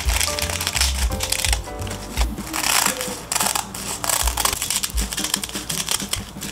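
Kitchen scissors cutting through two stacked sheets of dried seaweed (gimbap laver), a rapid run of crisp snips and crackles, over background music with a low bass line.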